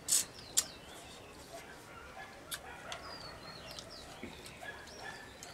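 Eating sounds as a man bites and sucks at a piece of fish: a short loud smack right at the start and a sharp click about half a second in, then a few faint mouth clicks. Birds chirp repeatedly in the background throughout.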